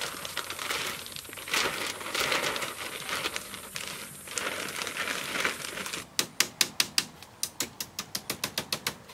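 Large clear plastic sheet crinkling and rustling as it is unrolled and spread over a bamboo-pole frame. About six seconds in it gives way to a quick run of sharp taps, five or six a second.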